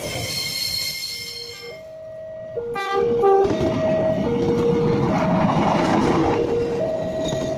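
A train passing close by with a loud rumble, its horn sounding a run of long steady notes that alternate between two pitches. A high ringing tone sounds over the rumble in the first two seconds.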